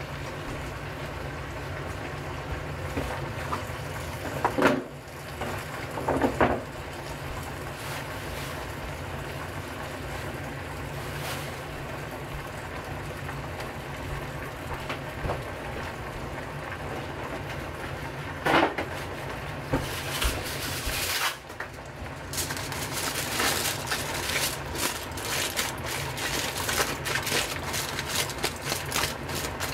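Steady hiss of a gas burner under a saucepan of cooking vegetables, broken by a few sharp knocks. About two-thirds of the way through, aluminium foil starts being crumpled, a dense crinkling that runs to the end.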